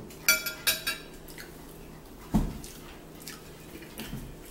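A metal fork clinks against a dinner plate two or three times in quick succession within the first second. A dull thump on the table follows about two and a half seconds in.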